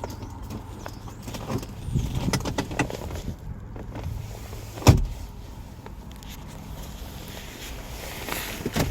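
Clicks, rattles and knocks from handling a car's body and doors, with one sharp thump about five seconds in, over a low steady rumble.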